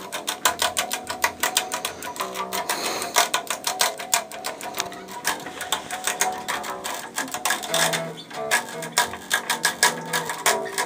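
Band music with fast, dense clicking strokes over changing low notes.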